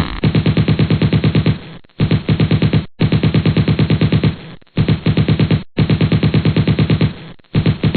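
Machine-gun sound effect: rapid automatic fire, about eight shots a second, in bursts of one to one and a half seconds with short breaks between them.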